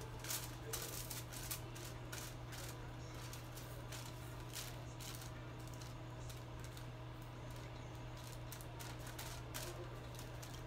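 Tint brush spreading hair colour over a sheet of foil: a string of short crinkles and brush strokes, bunched in the first couple of seconds and again near the end, over a steady low hum.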